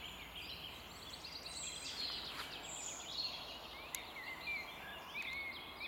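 Several songbirds singing and calling in woodland, faint: a mix of high chirps, a rapid trill and short whistled phrases over a soft background hiss.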